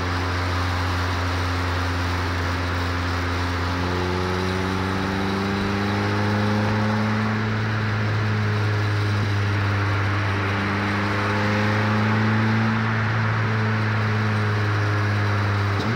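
Vauxhall C16SE four-cylinder engine in a classic Mini running under way, heard from inside the cabin over road noise. The engine note rises gently a few seconds in and again a little past the middle.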